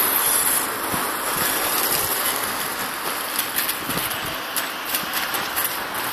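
HSP Brontosaurus radio-controlled monster truck driving across grass, its electric motor whining over the rustle of the tyres.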